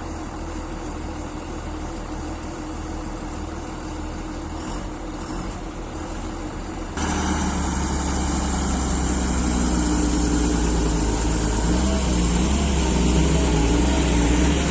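Heavy diesel machinery engines running steadily. About halfway through, the sound jumps abruptly louder, and an engine's pitch wavers as it works under changing load.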